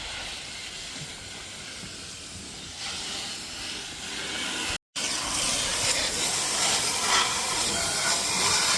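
Garden hose water spraying onto a lawnmower to wash off caked grass: a steady hiss of spray. It cuts out for a moment about five seconds in, then carries on louder.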